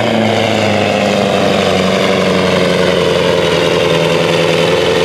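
Turbo-diesel engine of a sport-class pulling truck running flat out under heavy load as it drags the weight sled. The note holds steady, with its pitch sagging slowly as the pull goes on.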